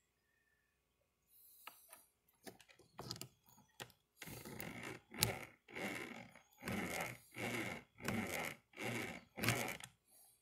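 Steel snare cable being worked back and forth against a nail: a few light clicks, then from about four seconds in about eight rasping scraping strokes, a little more than one a second, with a couple of sharp metal clicks. This is 'loading' the snare, putting a set in the cable so the loop closes fast and rounder.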